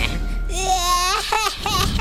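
A cartoon character's high-pitched, wordless vocalizing that starts about half a second in, sliding and wavering in pitch in short broken phrases.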